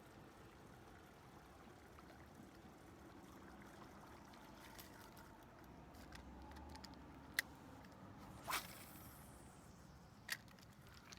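Near silence with a faint steady background, broken by three brief sharp clicks in the second half.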